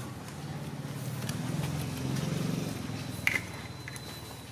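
Low hum of a motor vehicle's engine running, growing a little louder and then fading, with a single sharp click about three seconds in.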